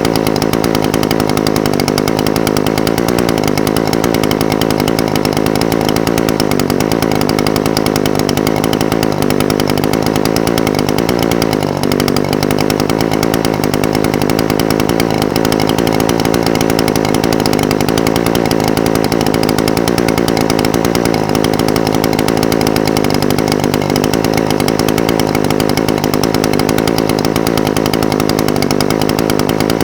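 Echo SRM-420TES brush cutter's two-stroke engine idling steadily, its pitch wavering slightly.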